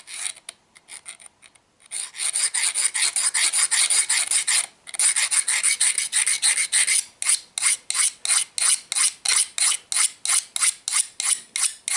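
Metal hand file rasping back and forth along the cutting edge of a mixer-grinder jar blade to sharpen it. A few light strokes at first, then a fast run of strokes from about two seconds in, settling into about three or four distinct strokes a second in the second half.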